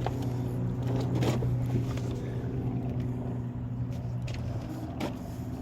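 Steady low hum of an idling engine, with a couple of faint knocks.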